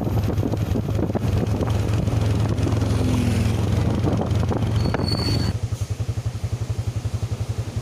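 Vehicle engine running close by: a rough low rumble that, about five and a half seconds in, drops into a steady, rapid low throb like an engine idling.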